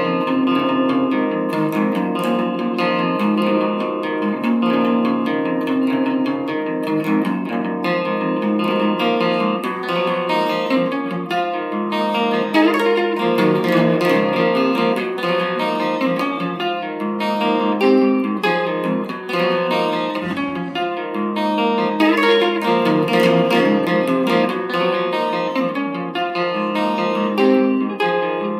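Solo electric guitar playing an instrumental math-rock piece: a continuous run of quickly picked single notes and chords, with no singing.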